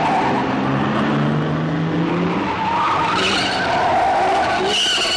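A car driving hard: the engine revs with a rising pitch, and the tyres squeal twice in the second half.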